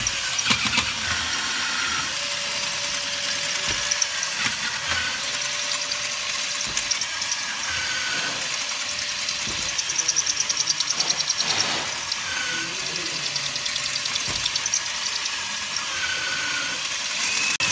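Motor-driven roller intake on an FRC competition robot running steadily under power, a loud even rushing noise with a faint steady tone over it. About ten seconds in, a short stretch of rapid pulsing joins it.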